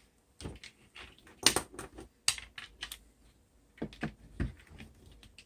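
Irregular clicks and light knocks from a Glock 20 pistol being handled and turned over in the hands, the loudest about a second and a half in.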